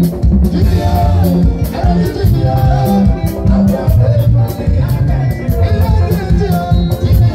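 Live band playing the song at a steady beat on drum kit and bass, with a male lead singer singing over it through a microphone and PA.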